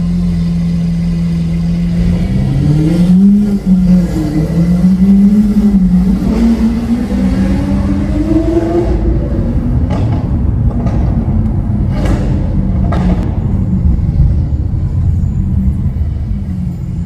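Lamborghini Aventador SV's V12 through a Capristo exhaust. It holds a steady note, then about two seconds in the revs climb and fall in several waves, and it settles into a steady drone broken by a few sharp cracks.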